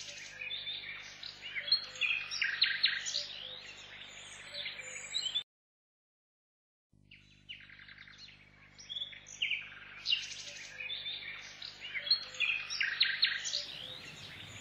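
Small birds chirping and calling, many short high calls overlapping, over a faint steady low hum. The sound drops out completely for about a second and a half partway through, then the chirping resumes.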